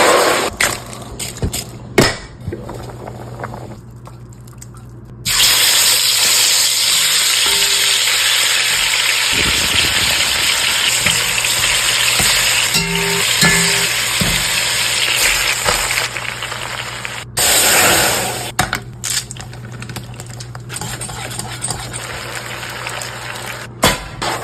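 Cooking sounds from a pan: a long steady hiss starting about five seconds in and easing off after about seventeen seconds, with short knocks and clinks of stirring around it.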